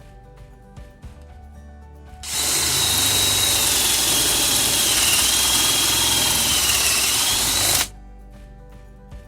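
Hamilton cordless drill running for about five and a half seconds, starting and stopping abruptly, with a steady high motor whine that sags slightly in pitch twice. Quiet background music plays before and after it.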